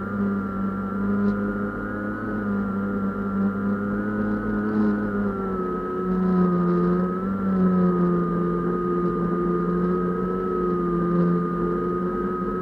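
A small unmanned aircraft's motor and propeller running at a steady pitch, heard close up from a camera on board the aircraft; the pitch dips slightly about halfway through.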